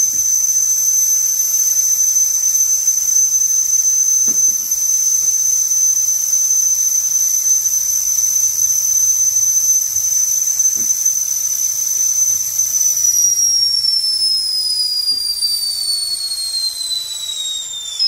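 Stainless-steel stovetop whistling kettle at the boil, its spout whistle giving one loud, steady high-pitched tone. About 13 seconds in, as the gas flame under it is turned off, the whistle starts sliding steadily down in pitch.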